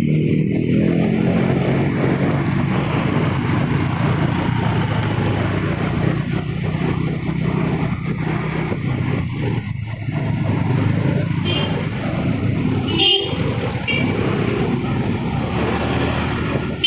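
Steady engine and road noise of a vehicle being driven, with a few short horn toots about twelve to fourteen seconds in.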